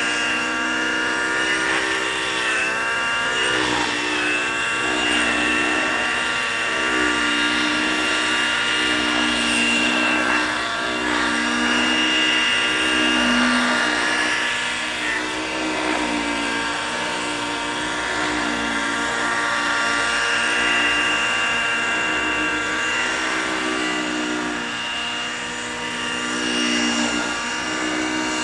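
Hirobo Freya 90 radio-controlled model helicopter flying: its glow-fuel engine and rotor blades run at high speed, the pitch rising and falling again and again as the engine is loaded and unloaded through aerobatic manoeuvres.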